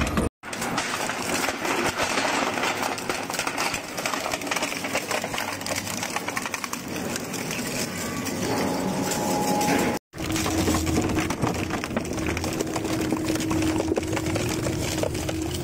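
Industrial double-shaft shredder running, its cutter blades tearing and crushing scrap in a dense, steady clatter and crunch. The sound breaks off abruptly twice, and after the second break a steady hum runs underneath.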